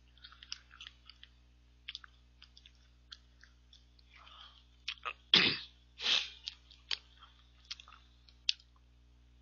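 Mouth noises of eating ice cream mixed with crunchy cookie crumble and puffed cereal: small crunching clicks. About five seconds in, a loud sudden burst of breath through the nose and mouth, sneeze-like, then a second shorter one.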